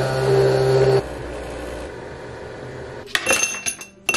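Nespresso Vertuo coffee machine running steadily at the end of a brew, cutting off suddenly about a second in. About three seconds in, ice cubes clink into a glass in a quick run of sharp, ringing clinks.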